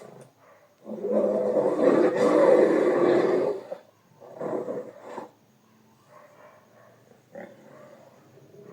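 Bear growl sound effect: one long roaring growl of nearly three seconds, starting about a second in, followed by two short growls.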